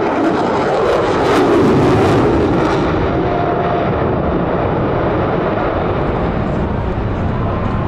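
F-22 Raptor's twin Pratt & Whitney F119 turbofans in afterburner: a loud jet rumble with a harsh crackle that peaks within the first three seconds, then settles into a steady rumble.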